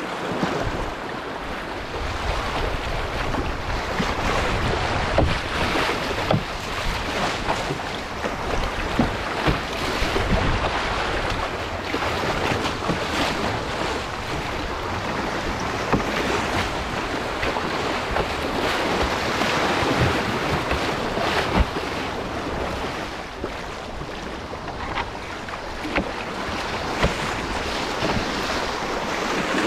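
Fast, flood-swollen river water rushing and splashing around a canoe's hull as it runs through standing waves, with wind on the microphone. Occasional short knocks stand out.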